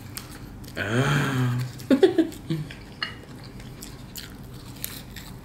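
A person chewing a crisp fried crab rangoon with small mouth clicks. About a second in comes a drawn-out hum of the voice, followed by a few short loud sounds.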